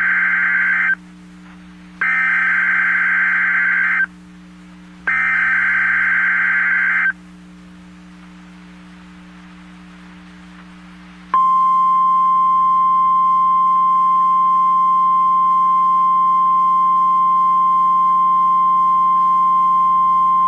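Imitation Emergency Alert System tones from a broadcast interruption. First come buzzing header-style data bursts about two seconds long, with about a second between them: one ends about a second in and two more follow. After a few seconds of low hum, a single steady alert tone near 1 kHz starts and holds for about ten seconds.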